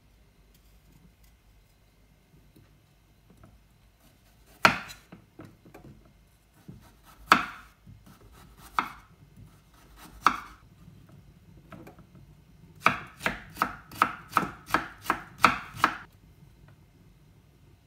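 Chef's knife cutting carrot on a bamboo cutting board: a few separate strikes, then a quick run of about ten chops, about three a second, near the end.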